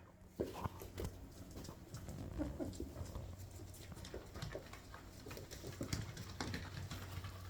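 Young puppies making small whines and squeaks, with many quick ticks of their claws on a slippery wooden floor.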